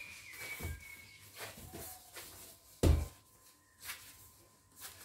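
Bread dough being kneaded by hand on a countertop: soft thumps and presses as the risen baguette dough is worked to knock the air out of it, with one much louder thump about three seconds in.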